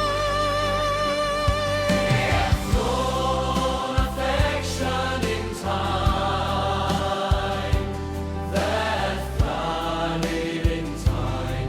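Song music with a choir-like vocal part held in long notes over bass and a steady drum beat.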